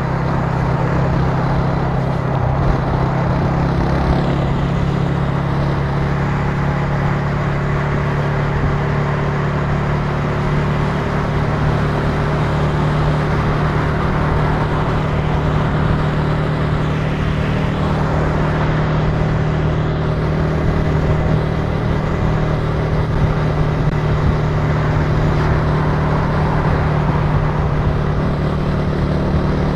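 Italika TC300 motorcycle engine running at a steady, constant pitch while riding.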